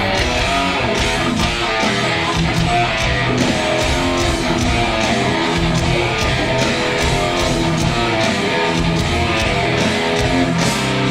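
A metal band jamming a heavy riff on electric guitar, with a steady beat running under it.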